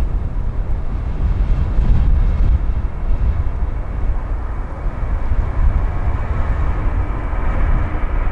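Jet airliner engines heard at a distance as a steady rumble. The higher part of the noise grows louder toward the end as the aircraft draws nearer.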